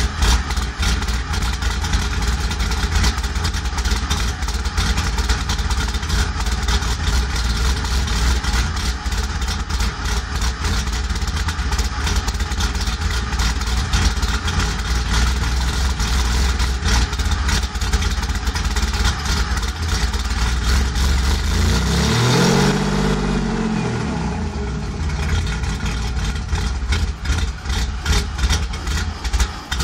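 Cammed 3800 V6 of a 2001 Pontiac Grand Prix GT idling rough and uneven, with one brief rev about 22 seconds in. The owner puts the rough idle down to a bad O2 sensor.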